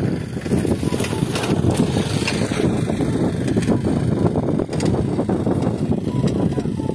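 Wind buffeting the microphone: a steady, rumbling noise.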